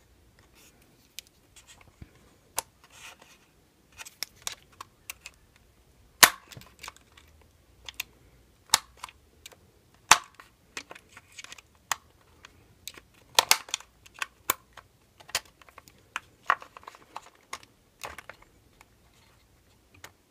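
Irregular clicks and taps of small parts and hand tools being handled while reassembling a radio-controlled truck's drivetrain, with a few sharper knocks scattered through.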